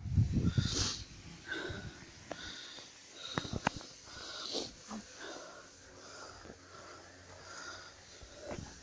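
A person breathing heavily in and out, about once a second, while walking on a forest path. There are footsteps and a few sharp clicks underfoot.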